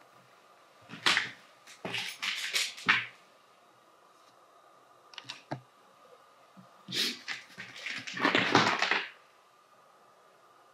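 Irregular clusters of short scuffs, clicks and crunches from someone moving about on a gritty floor: a quick run about a second in, a few clicks around five seconds, and a longer, denser run from about seven to nine seconds. A faint steady high whine sits under it throughout.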